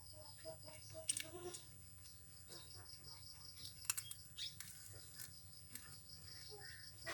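Faint, steady insect chirring, pulsing several times a second, with a few short sharp clicks.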